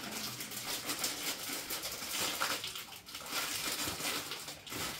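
Irregular crinkling and rustling of food packaging being handled on a kitchen counter.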